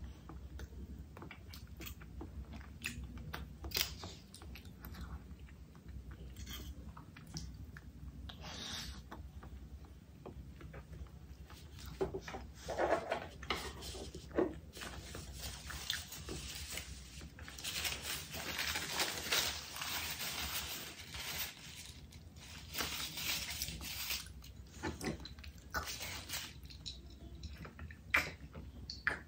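A person eating close to the microphone: chewing, with irregular mouth clicks and short crunchy bites that get busier about halfway through.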